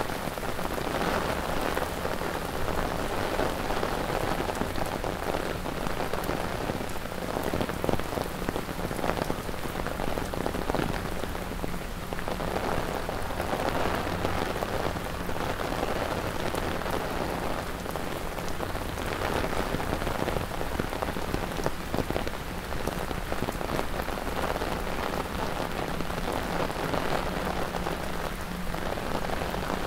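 Heavy rain falling steadily on wet pavement and street: a dense, even hiss of drops with a low rumble underneath.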